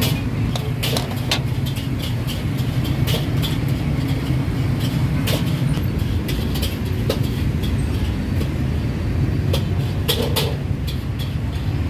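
Food-stall background: a steady low rumble with scattered sharp clicks and clinks.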